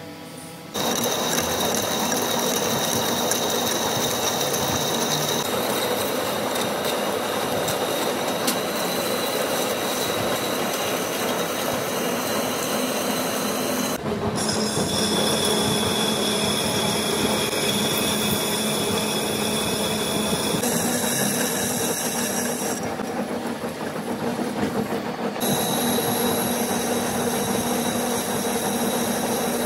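Machine tool cutting metal on a compressor crankshaft: a steady, loud machining noise with high-pitched whines. The tone changes abruptly about a third of the way in and again near the end.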